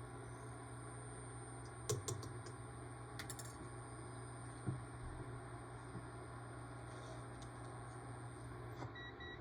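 Steady low hum with a faint high whine from the switched-on cooktop burner heating a pan of oil, with a few light clicks and knocks of kitchenware; the hum and whine stop near the end.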